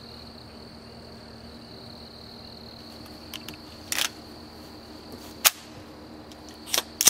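A steady high-pitched buzz under a handful of sharp cracks. Two come close together a little past three seconds in, then one about four seconds in, a loud one about five and a half seconds in, and two more near the end.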